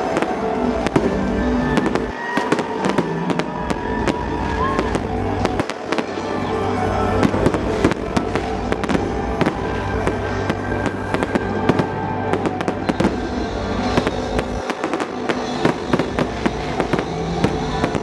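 Fireworks going off in a rapid, irregular run of bangs and crackles, with music playing underneath.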